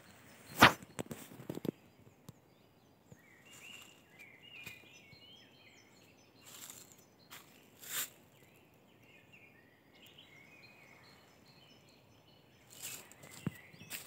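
Footsteps on dry leaf litter, with a sharp snap underfoot about half a second in. The walker then stands still while small songbirds sing series of short high notes and trills, with one more sharp knock about eight seconds in. Steps on the leaves resume near the end.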